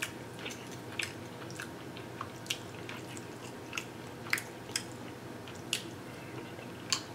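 Chewing saucy barbecue ribs up close: scattered sharp, wet mouth clicks and smacks, a dozen or so at irregular intervals, with fingers being licked near the end.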